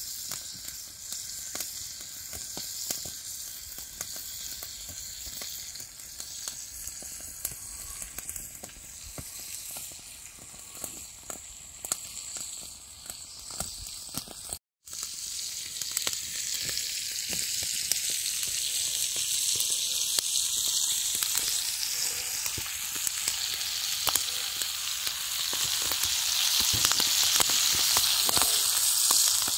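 Pork pieces frying in a small steel frying pan over an open campfire: a steady sizzling hiss with scattered pops. It cuts out briefly about halfway, then comes back louder and grows toward the end.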